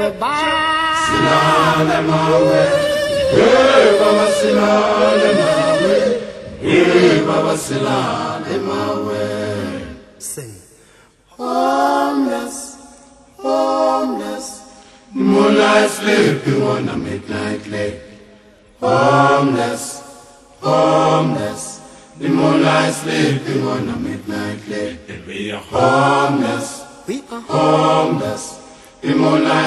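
Unaccompanied choir chanting, sung in phrases of a few seconds with short pauses between them.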